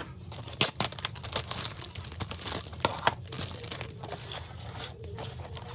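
Plastic packaging being crinkled and torn open, a quick run of sharp crackles over the first three seconds, then sparser handling.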